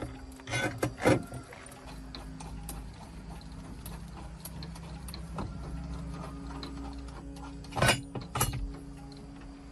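Mechanical repair work: scattered light clicks and ticks over a steady low hum, with a few louder clanks about a second in and again near the end.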